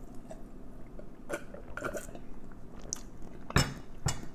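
Close-miked mouth sounds of a man drinking and chewing, with small wet clicks. About three and a half seconds in, a glass mug is set down on the table with a sharp knock, followed by a lighter clink.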